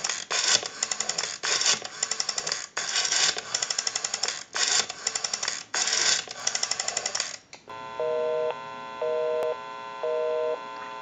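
A Western Electric 202 rotary dial pulsing out a number, with a burst of rapid clicks as the dial runs back after each digit. About eight seconds in, a busy signal starts: a two-tone beep about once a second. The number dialled is the caller's own line, so it is engaged.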